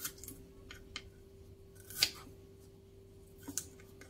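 Knife cutting shallots on a wooden cutting board: several separate crisp cuts and taps, the loudest about two seconds in and a quick pair near the end. A faint steady hum runs underneath.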